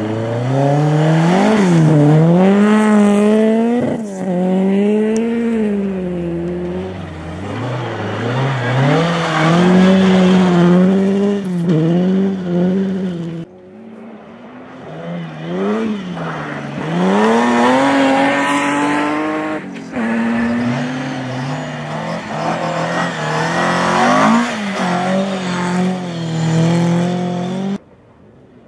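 Rally car engines revving hard on a snowy stage, the pitch climbing and dropping sharply again and again with gear changes and lifts. Several passes are cut together, with abrupt breaks about halfway through, near two-thirds of the way, and just before the end.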